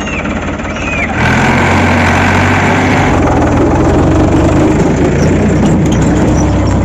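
Farmtrac tractor's diesel engine running as it pulls a trolley past, getting louder about a second in and then holding steady.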